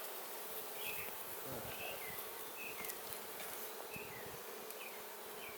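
Honeybees buzzing in a steady hum around an opened hive, with short high chirps recurring over it.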